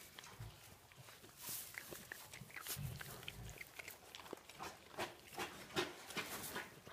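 Piglets rooting through straw bedding: crackling rustles of straw and short pig grunts, with a louder low grunt about three seconds in.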